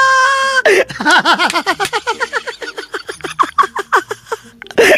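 A person laughing: a long run of quick, high-pitched 'ha' pulses that thins out and stops near the end, right after a drawn-out spoken vowel in the first half-second.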